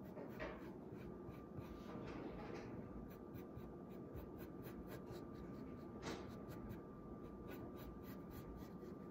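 Pencil scratching on paper in many short, quick strokes while sketching tree branches.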